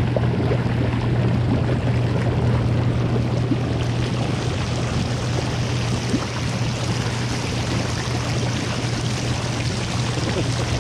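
Snowmobile engine running at a steady speed while riding, a constant low drone under a continuous rushing hiss.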